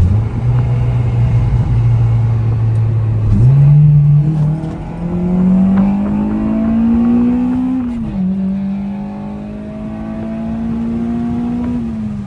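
Acura RSX's K20 four-cylinder engine doing a full-throttle pull: it cruises steadily, then the revs jump and climb for about four seconds, drop with an upshift about eight seconds in, climb again through the next gear, and fall as the throttle is lifted near the end.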